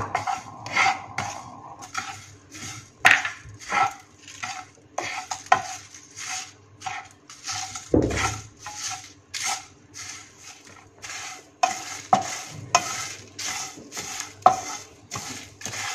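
Wooden spatula stirring whole spices (coriander seeds, sesame seeds, bay leaves, dried red chillies) around a dry frying pan as they roast on a low flame. It makes a run of irregular scraping, rattling strokes, with one heavier knock about halfway through.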